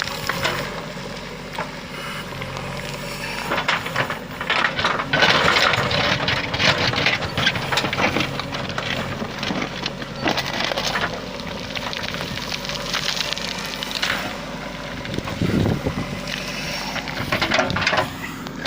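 JCB 3DX backhoe loader's diesel engine running steadily, with repeated irregular bursts of crunching and scraping over it.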